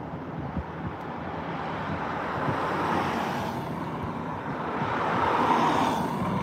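Cars passing close on the road, their engine and tyre noise swelling twice, louder the second time, then fading.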